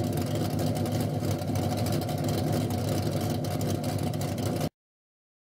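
Car engine running steadily with a deep, even note, then cut off abruptly near the end.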